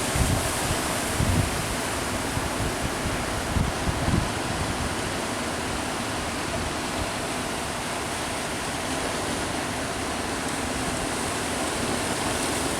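Steady rushing roar of ocean surf, with gusts of wind buffeting the microphone during the first four seconds.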